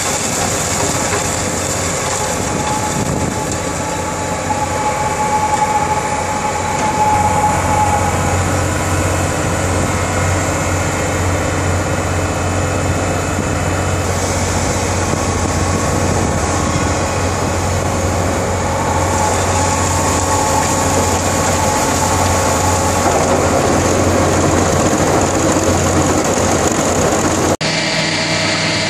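Foremost Barber DR-12 dual-rotary drill rig running steadily: the loud, even noise of its diesel deck engine and air compressor, with a constant low hum. The sound changes abruptly near the end.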